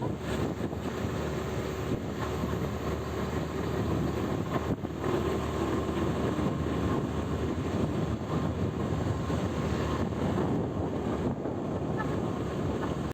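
Steady engine and road noise of a vehicle on the move.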